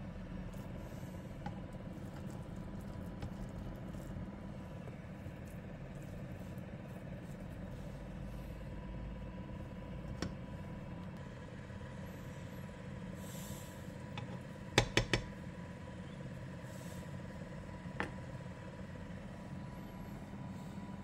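A steady low hum with a faint steady tone under it. A few sharp utensil knocks stand out: one about halfway through, a quick cluster of three or four louder clacks about two-thirds of the way in, and one more near the end, as a slotted spatula knocks against the non-stick pan.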